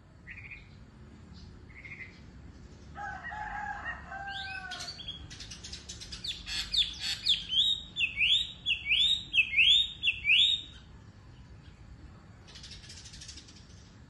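Caged wambi songbird singing: a few short high notes, then a quick run of notes building into a loud series of about seven repeated swooping whistles, ending about eleven seconds in. A brief rustle follows near the end.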